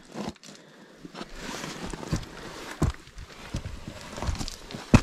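Scrapes, crunches and a few sharp knocks of loose rock and grit, as a loose rock is worked free by hand on a rocky slope.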